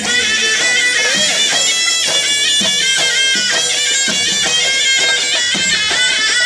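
Loud live folk music led by a reedy, bagpipe-like wind instrument playing a continuous melody over a steady beat.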